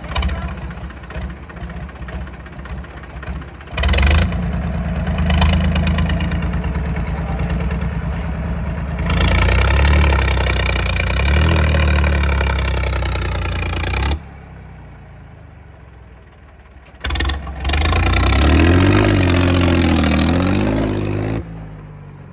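Mahindra 265 DI tractor's three-cylinder diesel engine running and being revved up and down in several loud stretches that start and stop abruptly, with a quieter stretch in between.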